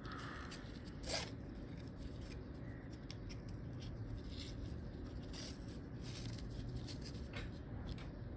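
Small scraping and rustling handling noises from a wristwatch being turned over in the hands, with one sharper scrape about a second in, over a steady low hum.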